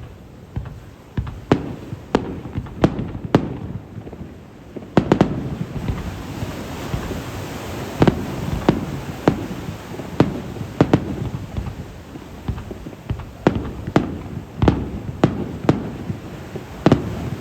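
Aerial fireworks shells bursting in quick, irregular succession, a string of sharp bangs with a low rumble rolling on between them.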